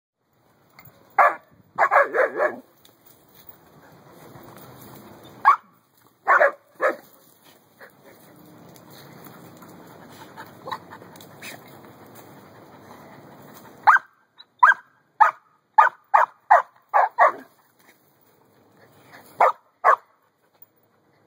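Two dogs, an Akita and a blue merle Australian Shepherd, barking back and forth in short calls and clusters. Near the middle comes a quick run of about eight barks in a row.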